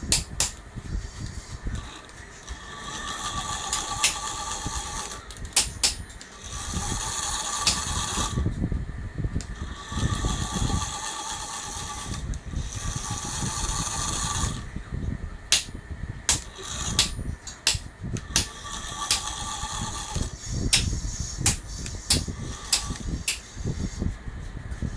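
Brass SM32 jackshaft locomotive chassis on test, its 500 rpm 12 V geared motor and 1:54 brass bevel gear drive whining as it runs. The whine comes and goes in stretches of one to three seconds, with sharp clicks and rattles in between.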